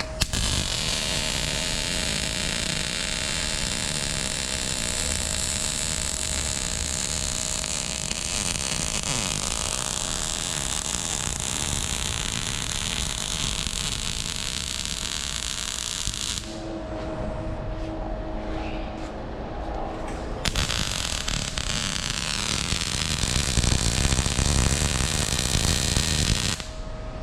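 Welding on the custom exhaust pipes: a steady crackling hiss that runs for about sixteen seconds, breaks off for a few seconds, then starts again and stops near the end.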